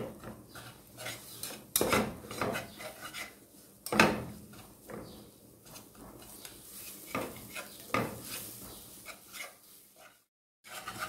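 A wire whisk scraping and clinking against the bottom of a metal saucepan as it stirs a butter-and-flour roux being cooked until lightly browned. The strokes are irregular, with sharper knocks about two and four seconds in, and the sound drops out for a moment near the end.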